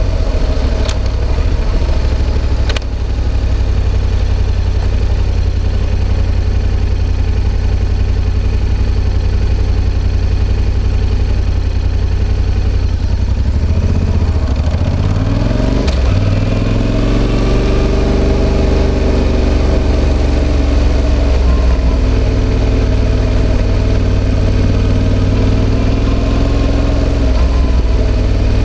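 Yamaha XSR700's CP2 parallel-twin engine running through an SP Tadao Power Box Full RS full exhaust. It is low and steady at first, climbs in revs about halfway through, then runs on at moderate revs.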